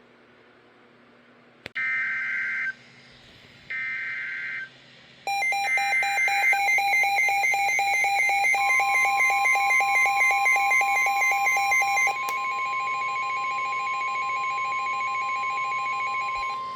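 NOAA Weather Radio Emergency Alert System signalling for a special marine warning: three short bursts of warbling SAME data tones about two seconds apart, then a rapid beeping alarm, joined about three seconds later by the steady single-pitch warning alarm tone that holds to the end.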